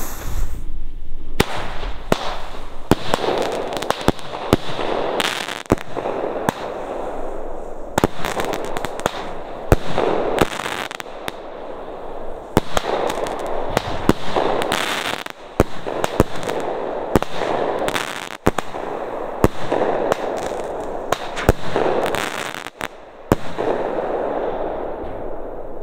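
Diamond Jubilee firework battery (a multi-shot cake) firing: a long, rapid run of sharp reports as the shots launch and burst, over a continuous crackling hiss, with a brief dip in the shooting near the end.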